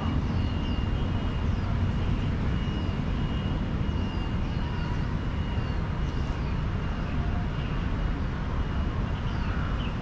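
Small birds chirping in the trees, many short high falling chirps, over a steady low rumble of city traffic; a thin high steady tone comes and goes.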